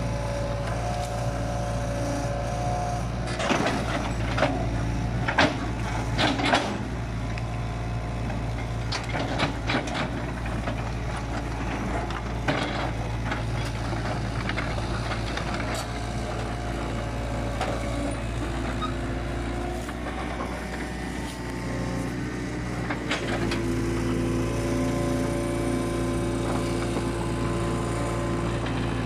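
Crawler excavator's diesel engine running steadily with a steady whine, while the bucket knocks and cracks against logs and brush: a cluster of sharp knocks a few seconds in, more scattered ones around ten seconds, and the engine note shifts about three-quarters of the way through.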